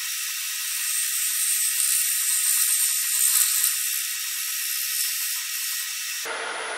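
Turning tool shaving a spinning walnut and resin bowl on a wood lathe: a steady hissing scrape, loudest in the middle. Near the end the cutting stops and only the Grizzly lathe's running whine remains.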